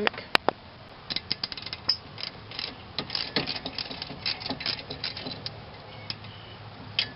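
Hand ratchet clicking in quick, uneven runs as it backs out a brake caliper bolt that has already been broken loose. There is a single sharp click just after the start and another near the end.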